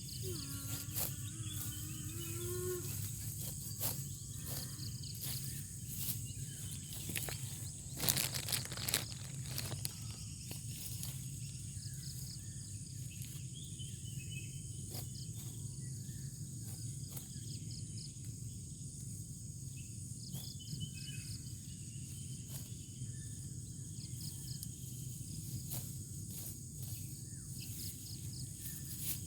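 Steady high drone of insects, crickets among them, with many short dry clicks and rustles scattered throughout. A louder rustling burst comes about eight seconds in.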